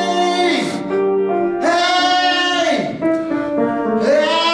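Music with sung notes held for about a second each over sustained chords, in repeating phrases.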